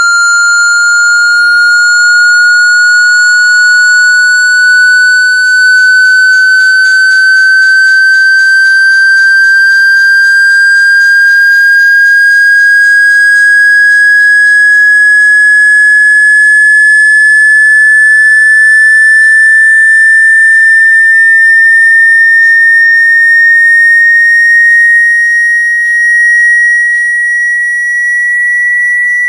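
Loud electronic sine tone gliding slowly and evenly upward in pitch, a high whistle-like sweep. It is a phone water-ejection tone, a frequency sweep played through the phone's speaker to vibrate trapped water out.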